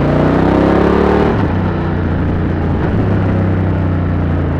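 BMW F 900 R parallel-twin engine through an SC Project SC1-R carbon exhaust with its dB eater fitted, with a deep, full sound while riding. It revs up with rising pitch, drops about a second in, then runs steadily.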